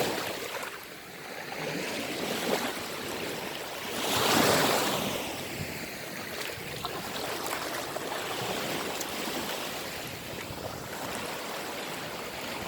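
Sea waves washing onto the shore in a steady wash, with a louder breaking surge about four seconds in.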